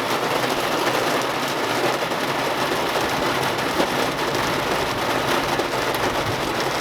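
Heavy thunderstorm rain pouring steadily, a dense even hiss.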